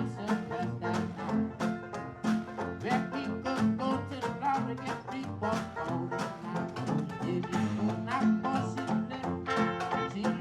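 Traditional New Orleans-style jazz band playing an instrumental passage of a swing tune, with brass horns including trombone over a steady bass line and a strummed, even beat.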